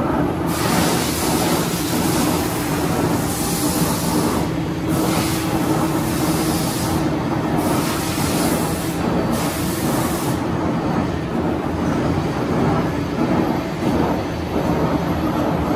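Schiess Froriep vertical turret lathe running with its 78-inch table spinning: a steady machine hum with a held tone. A loud hiss sits over it from about half a second in, breaks off briefly a few times, and stops about ten seconds in.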